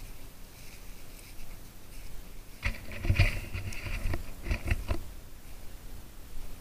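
Footsteps crunching and rustling through tall dry, dead grass and weeds, with a louder spell of crackling strokes in the middle.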